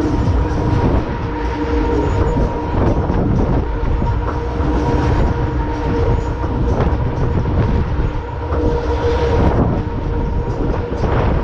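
Fairground ride in motion: a loud, steady mechanical rumble and clatter like wheels running on track, with a steady hum.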